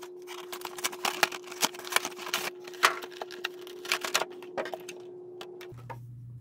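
Cardboard trading-card collection box being opened and its contents handled: a rapid run of clicks, taps and rustles, which stops about a second before the end.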